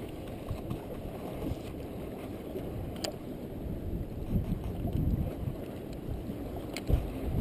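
Steady low rumble of wind buffeting the microphone and water moving against the shoreline rocks, with a couple of faint clicks.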